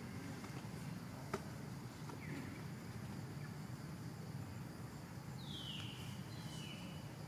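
Steady outdoor background with a single sharp click about a second in and a few short, high squeaks that fall in pitch, the two clearest near the end.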